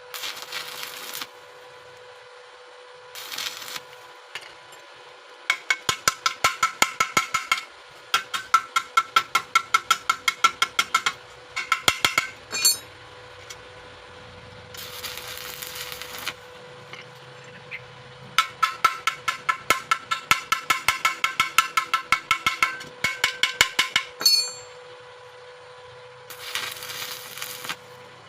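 Rapid metallic hammer taps on thin welded steel, about eight a second, in runs of two to six seconds, each tap ringing. Between the runs come a few short bursts of hissing, scraping noise.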